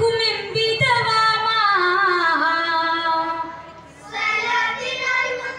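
Boys singing a vattappattu song, the Mappila Muslim group song of Kerala. A long melodic line falls away about three and a half seconds in, and the next line starts after a short breath.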